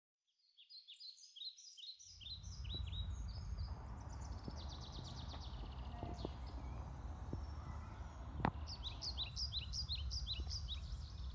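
Songbirds singing in woodland: phrases of short, high, falling notes repeated in quick series near the start and again near the end. Under them runs a steady low rumble, with a single sharp click partway through.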